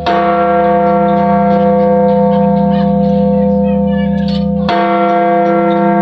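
Large church bell struck twice, once at the start and again about four and a half seconds in, each stroke followed by a long, steady ringing hum.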